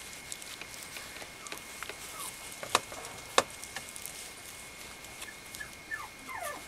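Mame shiba puppy whimpering: short, high whines that fall in pitch, faint at first and then several in quick succession near the end. Two sharp clicks, the loudest sounds, come a little over halfway through.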